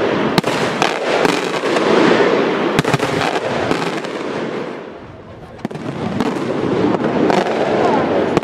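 Aerial fireworks bursting: sharp bangs over a dense, continuous crackle from the bursting shells. The barrage eases off briefly about five seconds in, then builds again.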